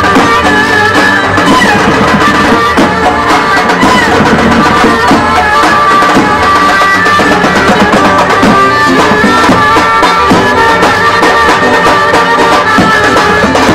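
Turkish Roman ince saz band playing traditional wedding music: a davul, the big double-headed bass drum, beaten with a stick in a steady driving rhythm, with hand drumming and a melody of high held notes over it.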